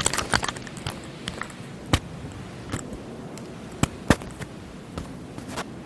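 Scattered knocks, taps and clicks from worshippers shuffling into prayer rows, over a low murmur of the large hall. The sharpest knock is about two seconds in, and two more come close together near four seconds.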